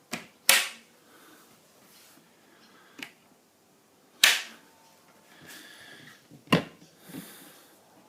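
Latches on a storage box snapping open: a few sharp clicks, the loudest about half a second in and about four seconds in, with faint rustling between.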